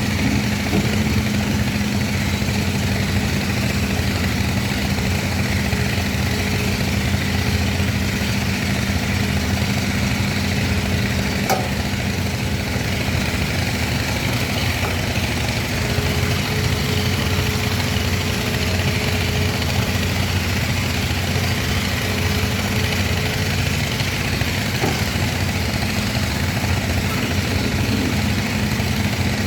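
Excavator's diesel engine running steadily with a low, even hum, and a faint whine riding above it. A single sharp click about halfway through.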